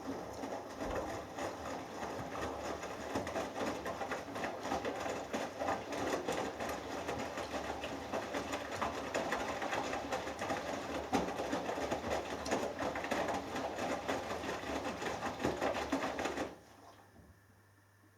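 Hoover Dynamic Next washing machine drum turning in the last rinse: the motor runs and the wet load tumbles in the rinse water for about sixteen seconds, then the drum stops abruptly.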